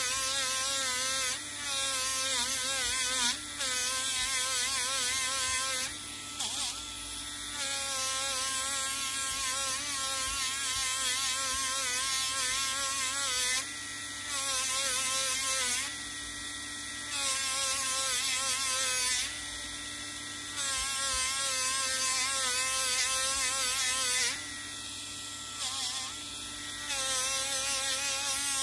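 Small handheld rotary tool running with a polishing disc pressed against a copper ball, its motor whine wavering in pitch under load, with a high hiss that drops out briefly several times when the disc comes off the metal. The disc is polishing away the black scale left by heating to bring out the red cuprous oxide beneath.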